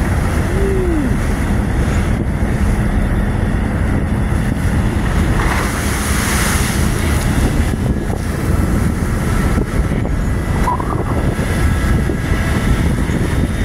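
Strong wind buffeting the microphone over choppy sea slapping against a tugboat's fendered bow and a tanker's hull, with the tug's engine humming steadily underneath. About six seconds in, a wave breaks in a hissing splash of spray between the two hulls.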